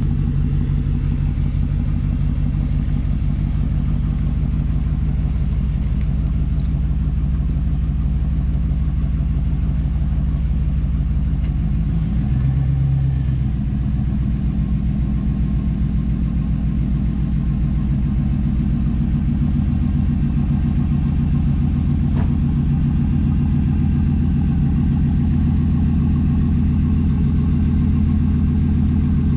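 1994 Pontiac Firebird Trans Am's LT1 V8 running with a steady low note that shifts slightly about twelve seconds in.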